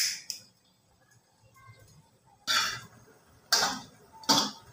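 Perforated metal skimmer scraping and knocking against a wok as boiled beef chunks are stirred: one stroke right at the start, then three short strokes about a second apart in the second half.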